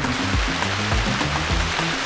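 Background music with a steady beat and bass line, over a steady rushing hiss.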